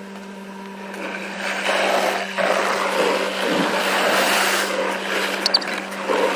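Automatic tunnel car wash heard from inside the car: water spray and soapy cloth wash strips scrubbing over the windshield, building up over the first couple of seconds, with a steady machine hum underneath.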